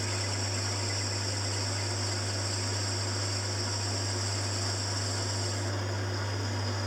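Small metal lathe running with a steady motor hum while a cutting tool takes a finishing pass along a brass piston; a high hiss from the cut stops about five and a half seconds in.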